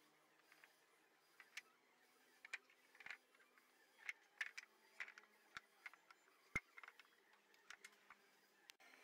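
Wooden planks being handled and laid down side by side: faint, irregular light knocks and clacks of board against board, with one sharper knock about two-thirds of the way in.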